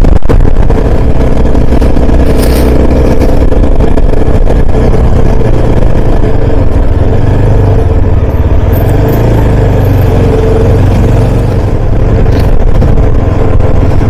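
Motorcycle engine running steadily while riding along a mountain road.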